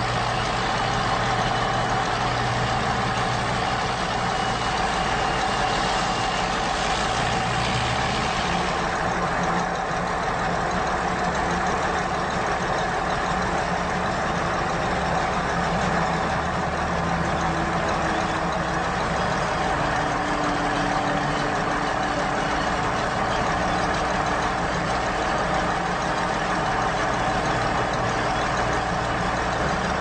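Large farm-machinery engine running steadily at a constant speed. A higher hiss over it eases off about nine seconds in.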